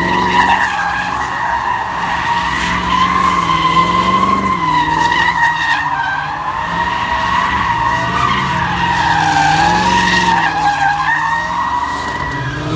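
Car tyres squealing in one long unbroken screech that wavers up and down in pitch, with the engine revving underneath it.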